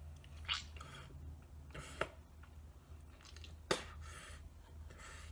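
Faint, scattered rustles and scuffs, with one sharp click about three and a half seconds in, over a low steady hum.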